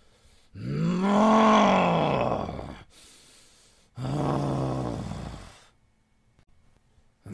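A man's angry groans, twice: a long one that rises and then falls in pitch, a short breath, then a shorter one about four seconds in.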